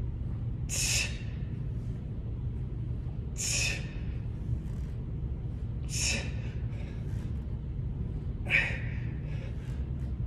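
A man's hard, forceful breaths, one at each dumbbell thruster rep, four of them about two and a half seconds apart, over a steady low hum.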